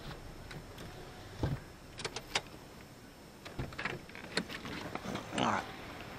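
A scatter of short clicks, knocks and a brief rustle from handling inside a parked car, over a faint steady background.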